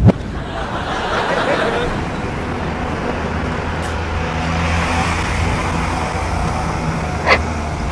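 A motor vehicle running steadily, with road-traffic noise, a brief low thump at the start and a short sharp knock near the end.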